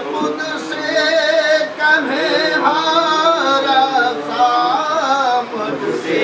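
Singing: a voice carrying a slow, ornamented melody with wavering, held notes, with music under it.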